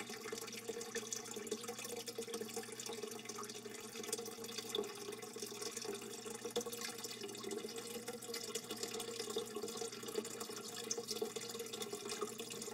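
Steady trickling and splashing of running water in a turtle's aquarium, with fine crackly drips.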